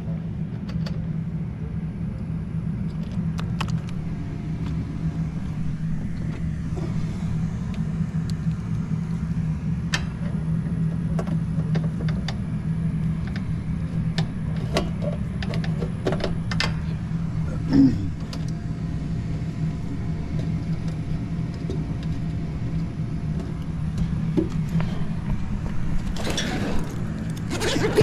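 Steady low machine hum with scattered light clicks and rattles of hand tools and wiring being worked in the unit's control panel; near the end a tool bag's zipper is pulled open.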